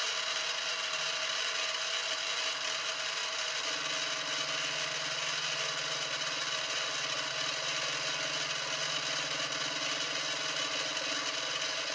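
Harbor Freight mini-mill running steadily while milling the end face of a brass rod, its motor giving a steady whine. A low hum joins about four seconds in.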